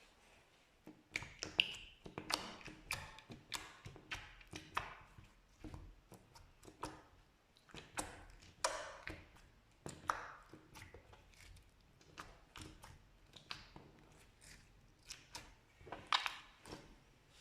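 Slime being squished and stretched, making a dense, irregular run of sticky clicks and wet pops that starts about a second in.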